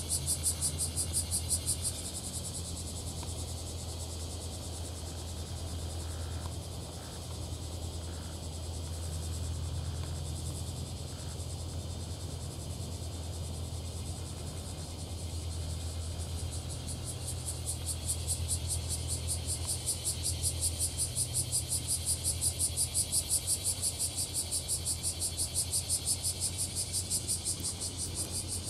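Insects singing in a rapid, even pulsing buzz that fades for a while in the middle and swells again about two-thirds of the way through, over a steady low rumble.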